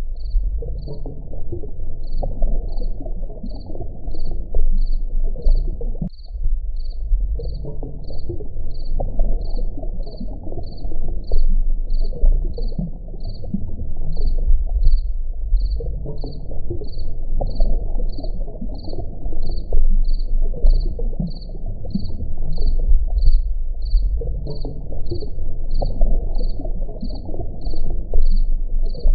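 A chorus of frogs croaking in a dense low band, over a high insect chirp that repeats evenly about two and a half times a second. A click and a short dip in the croaking come about six seconds in.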